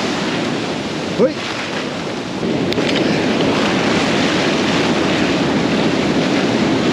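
Surf breaking and washing up a sand beach in a steady rush, with wind buffeting the microphone. A short rising note comes about a second in.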